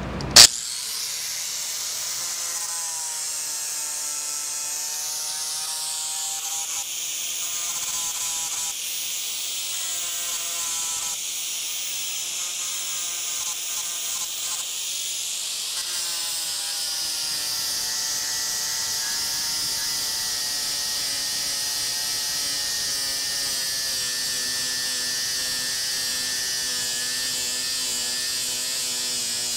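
Small right-angle grinder with an 80-grit sanding disc sanding aluminium hull plate: a sharp click just after the start, then a steady high whine whose pitch wavers.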